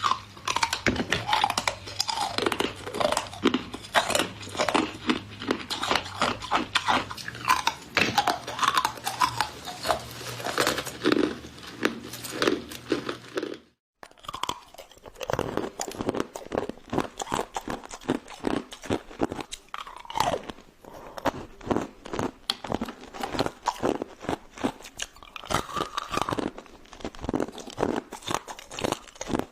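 Ice cubes being bitten and chewed close to the microphone, with a dense run of sharp crunches. The crunching breaks off into silence for a moment about halfway through, then starts again.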